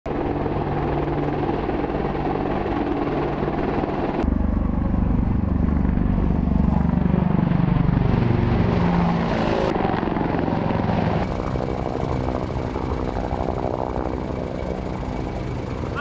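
AH-64 Apache attack helicopter flying, its rotor and turbine engines running steadily. The sound changes abruptly about four seconds in, again near ten seconds and a little after eleven.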